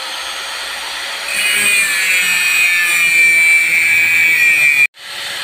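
Electric angle grinder running, its cutting disc biting into the steel pipe of an old car muffler from about a second in with a high, slightly falling metal screech over the motor's whine. The sound cuts out abruptly near the end and starts again.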